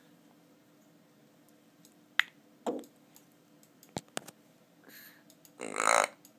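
African grey parrot making a few short clicks and squeaks, then a loud burp about half a second long near the end.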